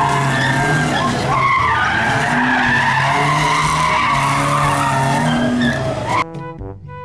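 A car drifting, its tyres squealing continuously with a wavering pitch over the drone of its revving engine. About six seconds in, the sound cuts off abruptly and plucked musical notes begin.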